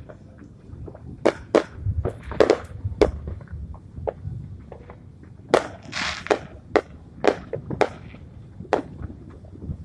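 Fireworks going off: about a dozen sharp, irregular bangs, with crackling bursts about two and a half and six seconds in and low booms under some of them.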